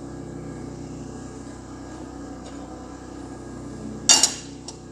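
Steady machine hum in a welding garage, with one sharp metallic clank about four seconds in.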